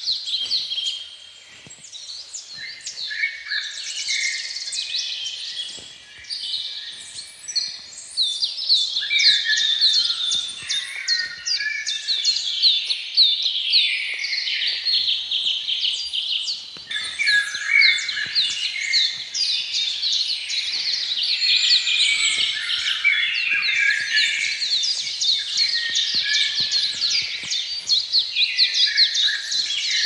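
A chorus of many birds singing at once: dense, overlapping, rapidly repeated high chirps and song phrases, a little thinner during the first few seconds.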